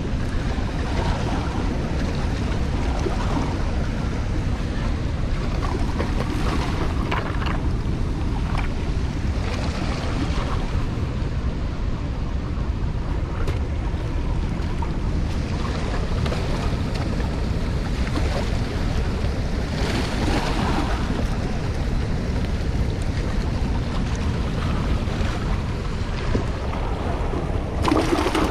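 Steady rushing noise of wind buffeting the microphone, over the sound of the spillway's water running with its gates open.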